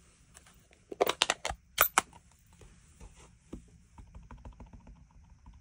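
A few sharp clicks and knocks as a Stampin' Up ink pad case and a clear acrylic stamp block are picked up and the pad opened, then a quick run of light taps as the rubber stamp is dabbed onto the Night of Navy ink pad to ink it.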